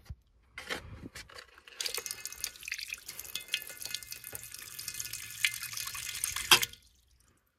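Water pouring from a glass drink dispenser's push spigot into a ceramic vessel sink with the drain stopper closed, splashing steadily for about five seconds. A few light knocks come before it, and it stops with a sharp click.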